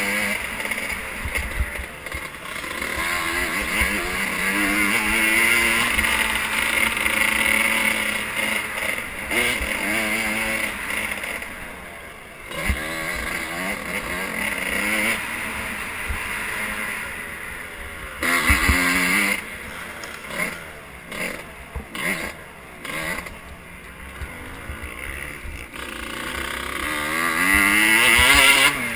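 Motocross bike engine, recorded onboard, revving up and falling off again and again as the rider accelerates and backs off around a dirt track. In the second half the throttle is chopped on and off in short bursts, before a long climb to its loudest near the end.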